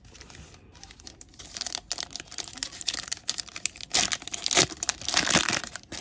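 Foil trading-card booster pack wrappers crinkling as they are handled and torn open. The crackling and tearing grows loudest in bursts a little past the middle.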